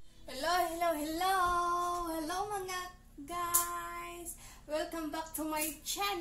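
A woman's voice singing in short phrases with long held, bending notes, breaking off briefly about three seconds in.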